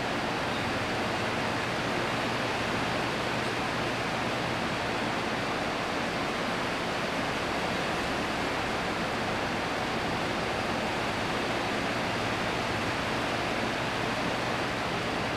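Steady, even hiss of background noise with a faint low hum beneath it, unchanging throughout.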